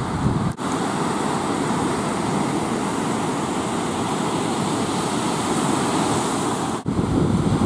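Ocean surf breaking and washing, a steady rush of noise with wind buffeting the microphone. The sound cuts out for an instant twice, about half a second in and near the end.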